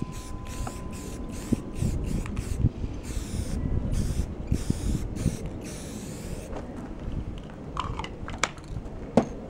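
Aerosol can of gloss black spray paint hissing in a series of short passes as a light coat goes onto a metal drum hoop, stopping about six and a half seconds in.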